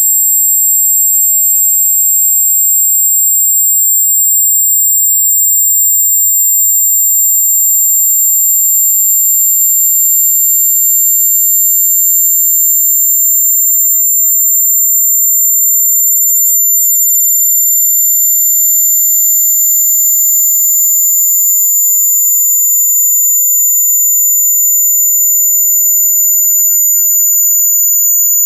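Two loud, pure electronic test tones sounding together, one high-pitched and one far higher near the top of hearing, held steady with only a slight drift in pitch.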